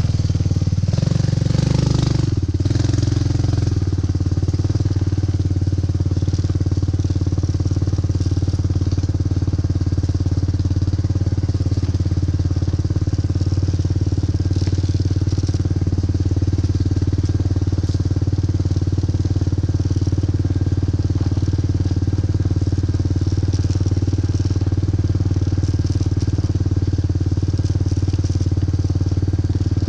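ATV (four-wheeler) engine running steadily, swelling briefly about two seconds in.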